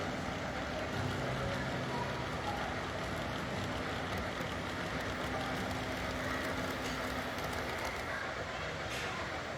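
Model train running along layout track: a steady rolling rumble and whir, with a faint held hum through the middle.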